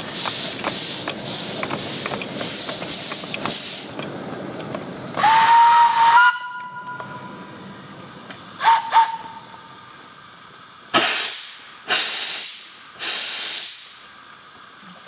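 Small steam locomotive chuffing slowly, about two exhaust puffs a second, then a steam whistle sounding for about a second and twice more in two short toots. Near the end, three separate bursts of steam hiss.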